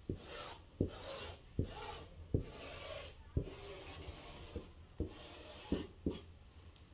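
Tailor's chalk rubbing across cotton fabric in repeated scratchy strokes as a curved pattern line is marked, with a light knock every second or so as the chalk touches down on the table beneath.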